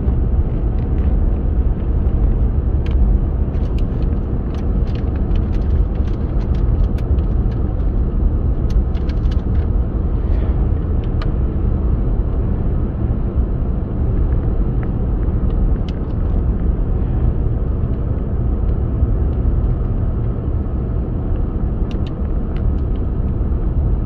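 Car driving, heard from inside the cabin: a steady low rumble of engine and road noise, with scattered small clicks and rattles.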